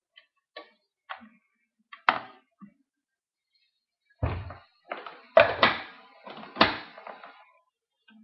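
Kitchen clatter of a pan, utensils and a small blender jar being handled as sautéed strawberries go into the blender: light taps and a sharper knock about two seconds in, then a run of louder knocks and thuds from about four seconds in.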